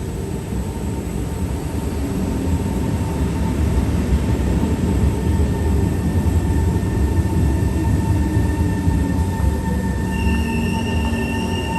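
Train running past close by: a steady heavy rumble that builds over the first few seconds, with a high metallic wheel squeal setting in about ten seconds in.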